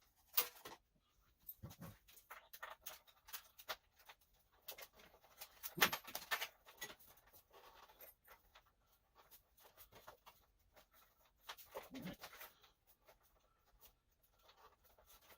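Irregular clicks, scrapes and knocks of hand tools and parts being handled while a motorcycle is taken apart, with a louder knock about six seconds in.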